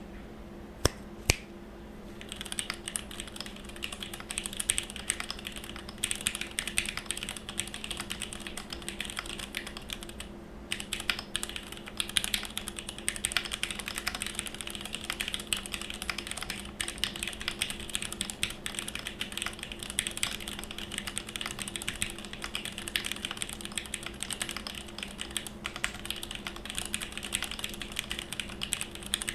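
Fast continuous typing on a gasket-mounted mechanical keyboard with Gateron X linear switches, a 5mm polycarbonate plate and GMK doubleshot ABS keycaps, with lubed Cherry stabilisers. A few single key presses come first, then steady clacking starts about two seconds in, with a short pause near the middle.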